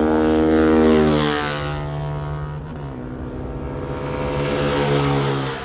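Racing motorcycles passing close by at speed, one after another. The first goes past about a second in, its engine pitch dropping as it recedes; the second comes past near the end.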